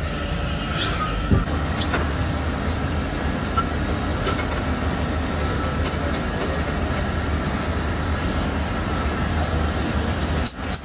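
Steady factory machinery noise with a low hum, a few sharp metallic ticks and a brief faint squeal in the first couple of seconds.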